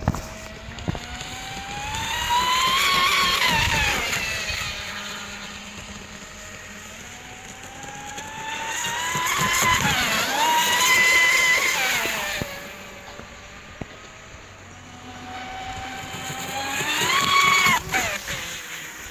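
RC speedboat making three fast passes, its high-pitched motor whine growing louder and rising in pitch as it comes in, then dropping in pitch and fading as it goes by.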